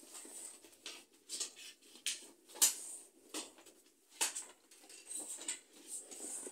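Irregular clicks, scrapes and rattles of plastic panels and metal connector rods of a modular cube storage cabinet being handled and fitted together, with two sharper knocks around the middle.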